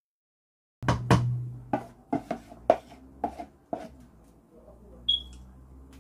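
Wooden spoon knocking against the side of a metal cooking pot while stirring soup: about nine sharp knocks over three seconds, starting about a second in, then a brief high ping about five seconds in.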